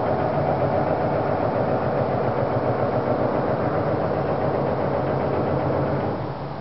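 Loud, steady mechanical drone with a rapid flutter in its loudness, easing off near the end. It is the unexplained night-time noise, which does not sound like a train to the people hearing it.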